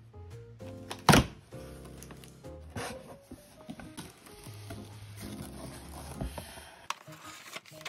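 Background music with cardboard being handled as a delivery box's flaps are opened; one sharp knock about a second in is the loudest sound, with a few fainter clicks and rustles after it.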